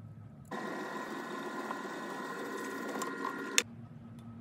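Benchtop drill press motor running with a countersink bit in the chuck, a steady mechanical whir with a rough edge. It lasts about three seconds, starting abruptly and stopping with a sharp click.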